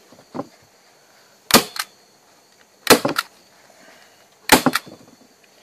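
Manual hand-squeeze staple gun firing three times, driving staples through a stretched bed pad into a wooden frame: three sharp snaps about a second and a half apart, each followed by a lighter click.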